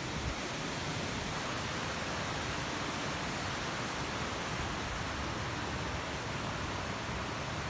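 Steady, even outdoor background noise, a hiss with no distinct events in it.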